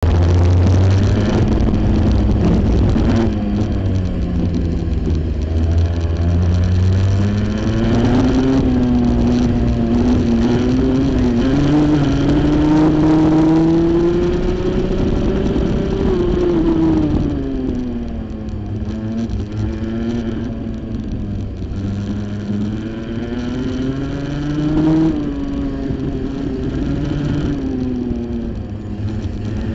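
Rotax Junior Max 125cc two-stroke kart engine at racing speed, heard from on board the kart. The revs climb steadily for several seconds about a third of the way in, fall away, then rise and drop again in shorter runs.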